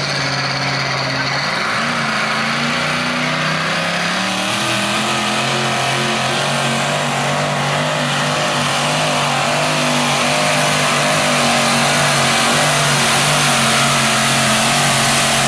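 Supercharged, open-header engine of a modified pulling tractor running at high revs under load down the track. It is a steady, loud engine note whose pitch wavers and climbs a little in the first few seconds, then holds, growing gradually louder.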